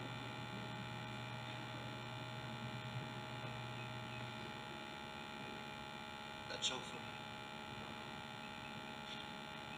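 Steady electrical mains hum through the hall's sound system, with a lower part of the hum dropping out a little over four seconds in and a brief faint sound about two-thirds of the way through.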